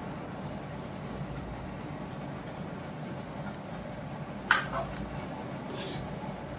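A metal ladle clinking against the karahi as the cooked mutton curry is stirred: one sharp clink about four and a half seconds in and a softer one just after, over a steady low hum.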